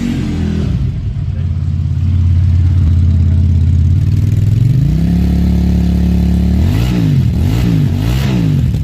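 A QJ Custom motorcycle's twin-cylinder engine being revved while standing. There is one quick blip, then a steady idle, then a rise to a higher held speed about five seconds in, and three quick throttle blips near the end.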